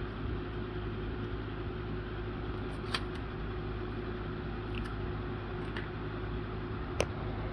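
Steady electrical or fan-like hum with a faint higher tone, and two sharp clicks, about three seconds and seven seconds in.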